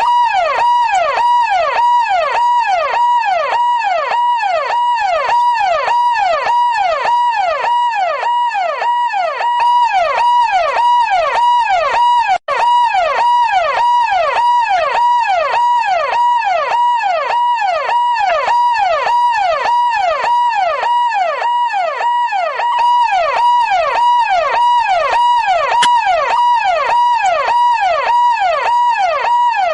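Police siren sounding continuously in a quick, repeating cycle of falling pitch sweeps, with a brief break about twelve seconds in.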